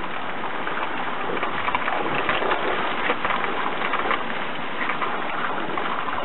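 Jet of water from a nozzle on the end of a micro-hydro supply pipe, spraying out and splashing into a shallow stream with a steady hiss and spatter.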